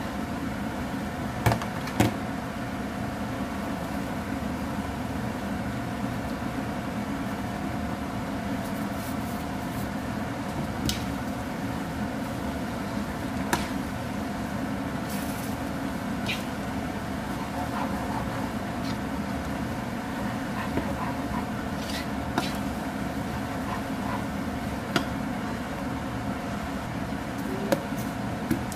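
Rice noodles being tossed in a nonstick wok, with sharp taps of the spatula and tongs against the pan every few seconds, over a steady machine hum.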